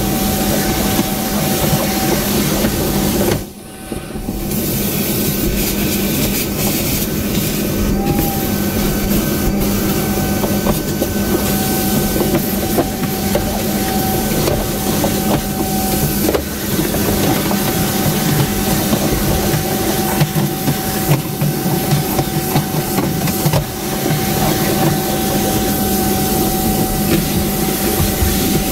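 Workshop vacuum cleaner running steadily with a constant whine, its hose sucking up grinding dust around the bench. The suction noise dips briefly about three and a half seconds in.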